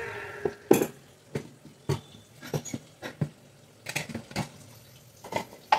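Irregular clinks and knocks of kitchen utensils and dishes being handled on a counter, about a dozen separate strikes, the loudest about a second in.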